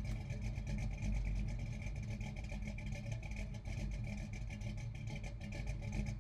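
Car engine running steadily, a low even rumble made of fast pulses, with no revving.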